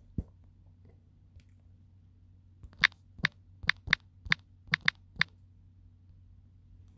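Typing on a smartphone's on-screen keyboard: about eight sharp key clicks in quick, uneven succession over two and a half seconds as a word is spelled out. A single tap comes shortly before, over a faint steady low hum.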